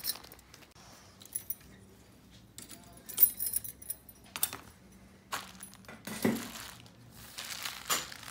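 Metal key blanks clinking and jingling as they are handled and hung on pegboard display hooks: scattered light clicks, a sharp cluster of clinks about three seconds in, and a duller knock around six seconds in.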